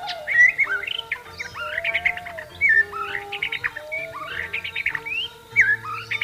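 White-rumped shama (murai batu) singing a fast, varied run of clear whistles and chattering trills, over soft background flute music with long held notes.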